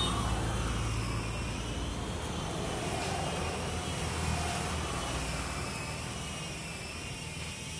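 Distant engine noise: a steady low rumble with a faint wavering high whine, slowly fading.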